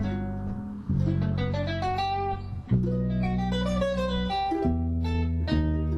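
Background music led by plucked acoustic guitar, with a low bass line and quick melodic runs of notes.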